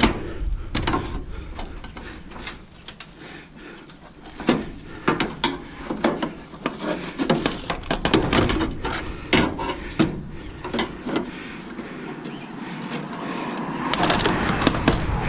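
Thin aluminum stove panel being pried and bent with a pry bar: a run of clanks and knocks with high metal squeals as the panel flexes against a screw that is still holding it. A denser scraping noise builds near the end.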